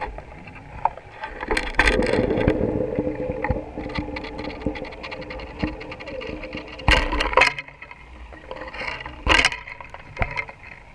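Underwater sound picked up through a GoPro's waterproof housing on a fishing line: a muffled water rush with frequent clicks and knocks. The housing and line jostle and rub in louder bursts about two seconds in, around seven seconds in and again near the end, with a low steady hum between the first two.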